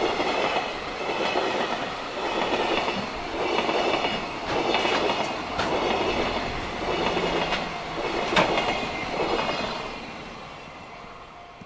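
Freight train's wagons rolling past, wheels clattering over the rail joints in a regular clickety-clack that swells about once a second, with a few sharp clicks. The sound fades away near the end as the train clears.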